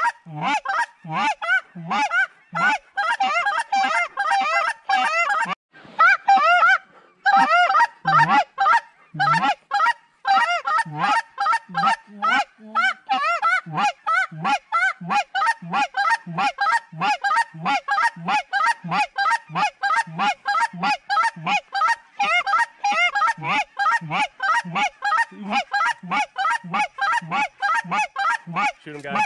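Geese honking: a loud, steady run of short goose calls, about two a second, each note breaking up and then dropping in pitch, with a couple of short pauses.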